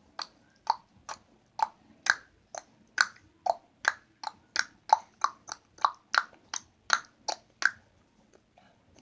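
A person making a quick run of clicking noises with the mouth, about two to three a second, each click a little higher or lower in pitch than the last, stopping near the end.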